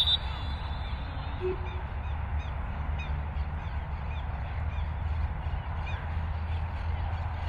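The tail of a referee's whistle blast, cutting off at the very start, then small birds chirping repeatedly over a steady low outdoor rumble.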